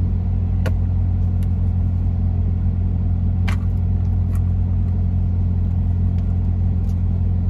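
Steady low drone of an idling engine, heard inside a truck's sleeper cab, with a couple of faint clicks over it.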